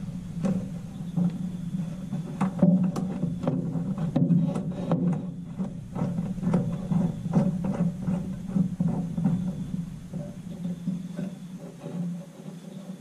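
Irregular light clicks and knocks of a fuel filter, fuel pump and braided AN hose with metal fittings being handled and set down on a wooden truck bed, over a steady low hum.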